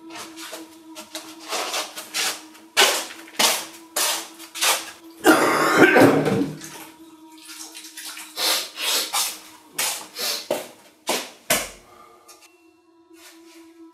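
Plastic slippers slapping and shuffling on a concrete floor in a series of sharp steps. About five seconds in, a tap runs water into a sink for a second or so. A low steady hum sits underneath.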